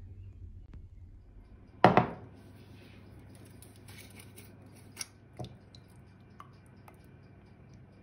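A drinking glass set down on a kitchen countertop with one sharp knock about two seconds in, followed by a few light clicks of handling.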